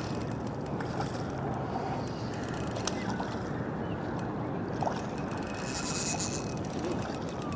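Spinning reel's drag clicking as a hooked fish pulls line on a light 6 lb setup, in bursts of rapid ticks with a longer buzz about six seconds in, over steady water and wind noise.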